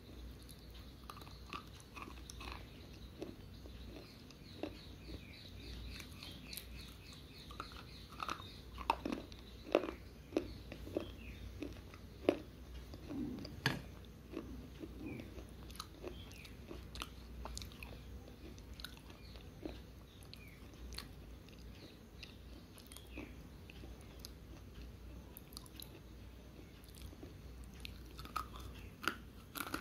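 Slate pencil being bitten and chewed: sharp, dry crunching snaps come at irregular intervals, thickest about a third of the way in and again near the end. This pencil is not very crunchy.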